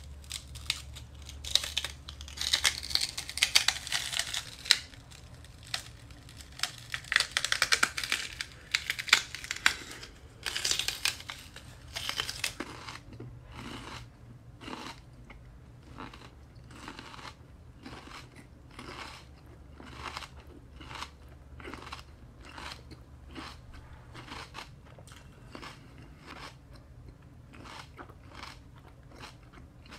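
Raw celery stalks bitten and crunched close to the microphone: loud, crisp, fibrous crunching for about the first twelve seconds, then steady rhythmic chewing, about one and a half chews a second and quieter.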